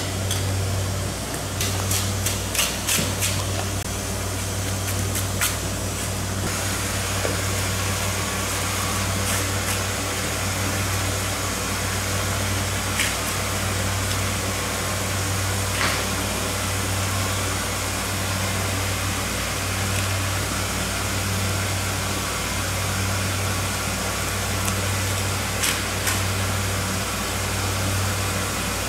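A steady low mechanical hum with a hiss over it, and scattered sharp clicks and taps, a quick run of them about two to three seconds in, from a large knife cutting and lifting the skin of a bluefin tuna.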